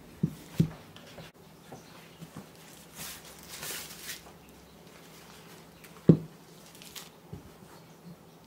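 Handling noise from unwrapping a power bank from its plastic sleeve: two soft knocks near the start, a light crinkle of plastic about three to four seconds in, and a louder single knock about six seconds in, with a few small taps on the table.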